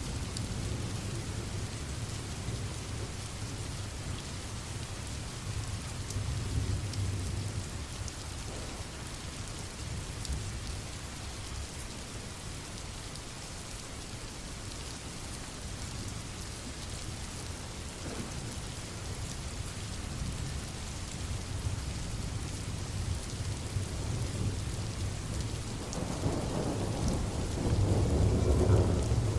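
Steady rain with low rolling thunder. A louder, longer rumble of thunder builds near the end.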